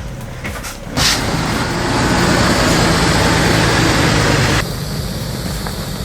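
Heavy truck engine running under load, growing much louder and noisier about a second in and dropping back suddenly near the end.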